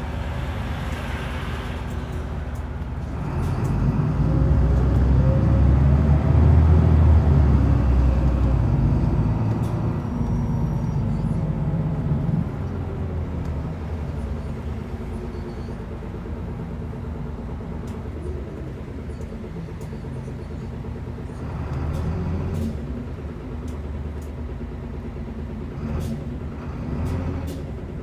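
Mitsubishi Fuso Aerostar city bus's four-cylinder turbo diesel heard from inside the passenger cabin while it is under way. About three seconds in it pulls away, growing louder for several seconds with rising whines. It then settles into a quieter run with engine and road noise, swelling briefly twice near the end.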